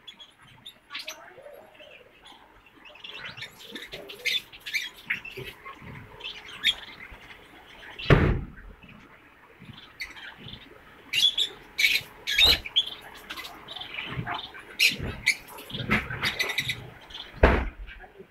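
Chicken giving many short, high-pitched calls, broken by a few loud knocks.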